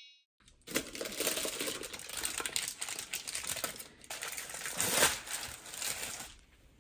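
Baking paper and plastic wrap crinkling and rustling in irregular bursts as hands pull them back from a baked cake.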